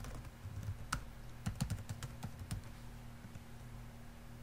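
Typing on a computer keyboard: a run of keystrokes, busiest in the first half and sparser toward the end, over a steady low electrical hum.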